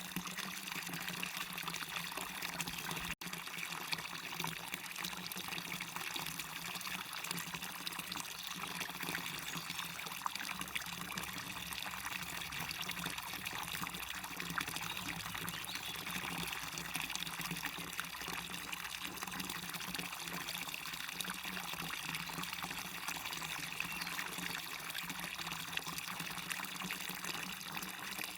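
Small waterfall splashing steadily into a stream: an even, unbroken rush of falling water, with a split-second dropout about three seconds in.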